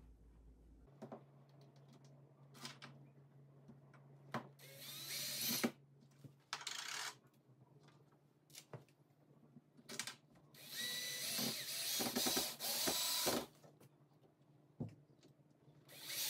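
Cordless drill/driver driving screws to fasten a window-shade mounting bracket: three runs of the motor, the last and longest about three seconds, with clicks and handling knocks between.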